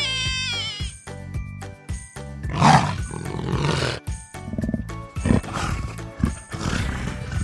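An animal's harsh growling roars over background music: one long roar from about two and a half seconds in, then a run of shorter ones. A high, wavering call dies away in the first second.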